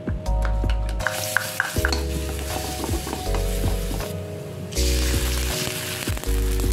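Chopped shallots and garlic sizzling in hot oil in an aluminium wok, starting about a second in, while a wooden spatula stirs them with a few taps against the pan. The sizzle dips briefly past the middle and comes back strongly.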